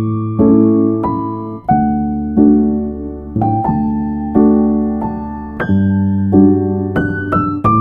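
Background music: slow electric piano chords, each struck and left to fade, with a few higher notes laid over them.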